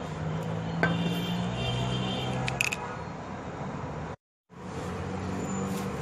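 Steady rushing noise with a few light metallic clinks, about a second in and again near two and a half seconds, and a moment where the sound cuts out completely.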